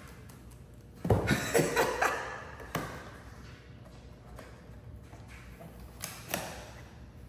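A small cardboard box set down on a countertop about a second in, with a quick cluster of knocks and rustles, then quieter cardboard handling with a few sharp taps as the box is worked open.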